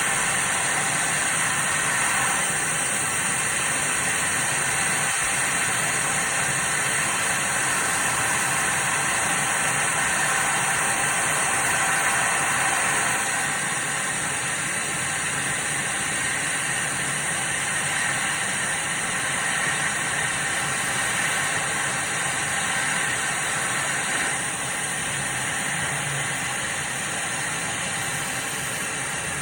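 CO2 laser CNC cutting machine running, a steady hiss of its air and fans that eases slightly about halfway through.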